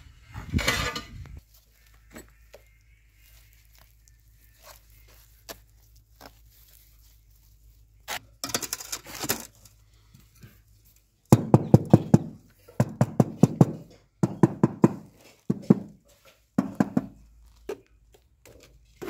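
Scraping and clinking of tile-fixing work: a trowel and ceramic tiles worked against mortar. It comes in several rough, rapidly rattling bursts, mostly in the second half, with scattered clicks between.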